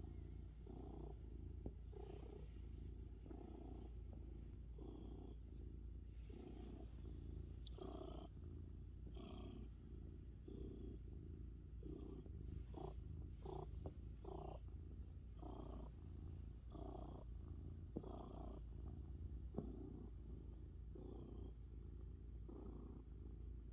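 Domestic cat purring steadily while being stroked, a low rumble that swells and eases with each breath about once a second.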